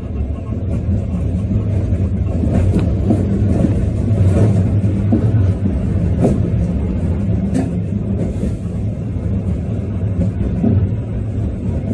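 Sapporo streetcar running along its street track, heard from inside at the front: a steady low rumble of motors and wheels, with a few short knocks of the wheels over the rails.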